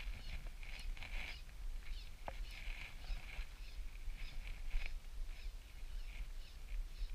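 Shimano Stradic spinning reel being cranked in short, uneven bursts as a lure is retrieved.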